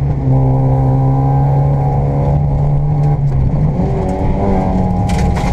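Škoda Fabia 1.4 rally car's engine heard from inside the cabin, running hard at a steady pitch, then jumping higher in pitch about three and a half seconds in. A short clatter near the end.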